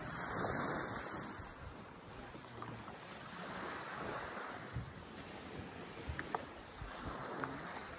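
Sea waves washing onto a shelly beach in surges every few seconds, with wind rushing over the microphone. A few sharp clicks come near the end.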